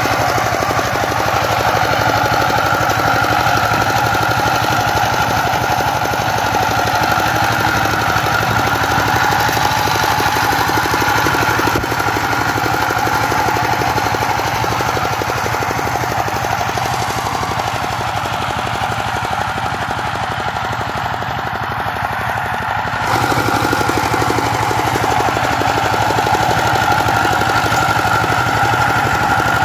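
Two-wheel power tiller's single-cylinder diesel engine running steadily under load while its rotary tiller churns through the soil. It drops a little in loudness for a few seconds past the middle, then comes back.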